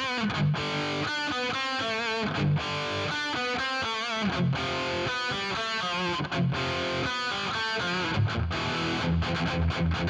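Distorted electric guitar playing a riff of chords and single notes: the raw, uncompressed recording. Lower, quicker notes come in near the end.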